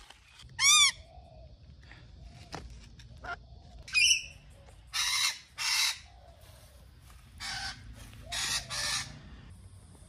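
Rainbow lorikeets calling: one loud, clear call that rises and falls in pitch near the start, a sharp call about four seconds in, then harsh screeches, two together and three more near the end.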